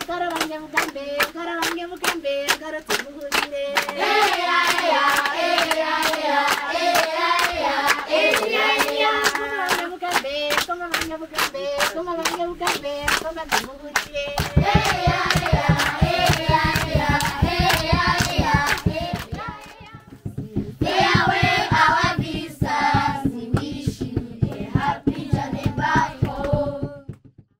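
A group of children and women singing together to steady rhythmic hand clapping, with low thumps joining in from about halfway. The singing drops briefly around twenty seconds in, picks up again, then stops abruptly just before the end.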